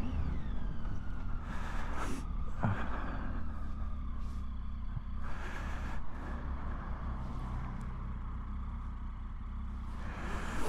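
Triumph Tiger 800's three-cylinder engine running as the motorcycle rides along, its note falling in the first second as it slows. A few brief rushes of wind noise on the microphone.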